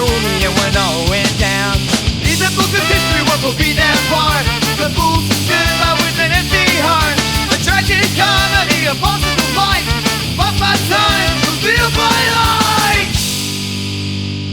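Instrumental punk rock: a distorted lead guitar plays a solo of bending, wavering notes over bass and drums. About 13 seconds in the band stops on one held chord that rings out and fades.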